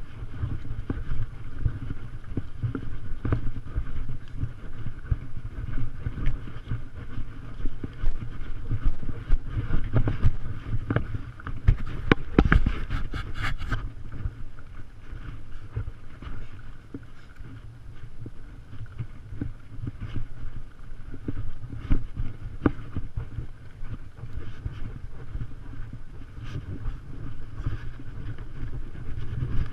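Wind buffeting a GoPro Hero 3's microphone as it rides along on horseback: a steady, uneven low rumble, with scattered knocks from the horse's walk and a denser run of knocks about twelve seconds in.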